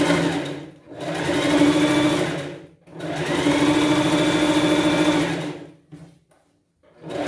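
Sewing machine stitching a seam in three runs, each starting and stopping: a short one, then about two seconds, then a longer steady run of about two and a half seconds. The machine stops for about a second near the end.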